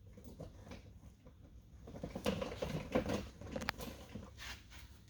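Faint handling sounds of hand tools and small trim parts: light irregular clicks and scrapes, with one sharp click about three and a half seconds in.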